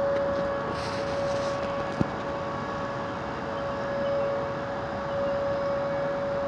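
Outdoor tornado warning siren holding one steady tone that swells and fades slowly, over gusting storm wind. A single sharp knock about two seconds in.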